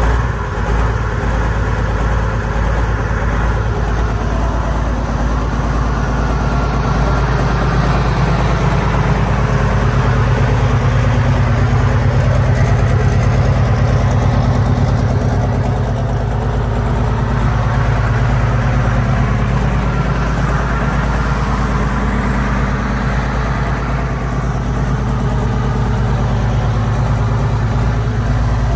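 John Deere 830 Diesel pro stock pulling tractor's diesel engine idling steadily and loudly.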